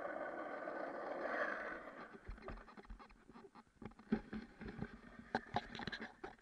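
Skateboard wheels rolling over rough asphalt, a steady rumble that fades out about two seconds in. It gives way to a run of irregular clacks and knocks from the board as it is kicked up and flipped, loudest in the last couple of seconds.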